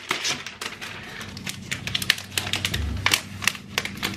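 Thin protective plastic film crinkling and crackling as it is peeled off an iMac's aluminium back, a run of irregular sharp clicks.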